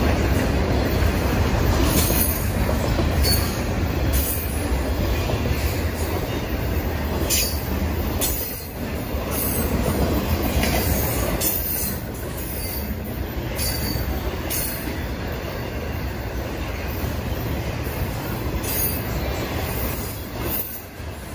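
Double-stack intermodal freight train cars rolling past: a steady rumble of wheels on rail, with brief high-pitched wheel squeals now and then.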